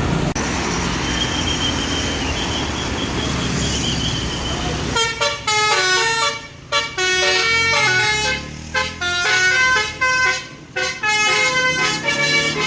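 A tour bus's basuri telolet horn, a multi-tone musical air horn, playing a melody of short stepped notes in quick phrases. It starts about five seconds in, after a stretch of steady engine and road noise.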